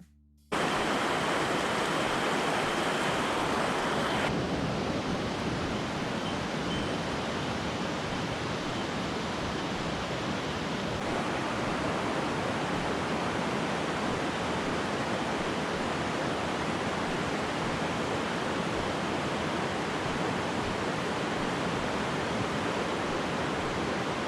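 Mountain stream water rushing, a steady even hiss that cuts in suddenly about half a second in; the upper hiss eases slightly about four seconds in.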